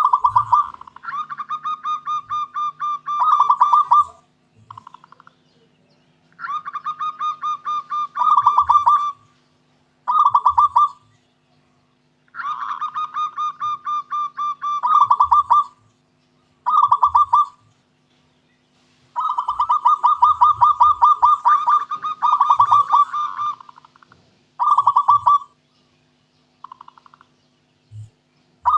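Zebra dove (perkutut) cooing: phrases of fast rolling, pulsed notes repeated about eight times with short pauses between them. Some phrases are long and some are brief.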